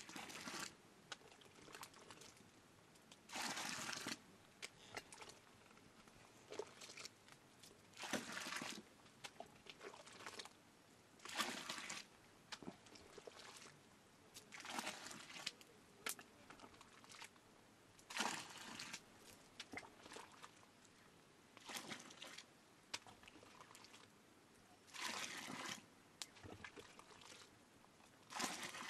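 Liquid scooped from a large steaming pot with a ladle and poured out, with a splashing pour about every three to four seconds.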